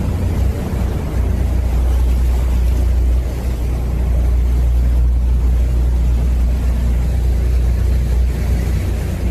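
Small patrol boat's engine running steadily under way, a loud, even low rumble mixed with the rush of water and air around the hull.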